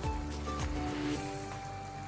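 Instrumental background music: held melody notes over low beats.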